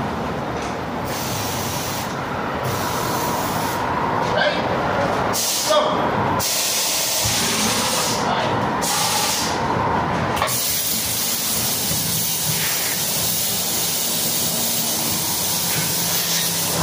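Loud hiss of gas spraying out under pressure, in short bursts with brief gaps, then held steadily from about ten seconds in.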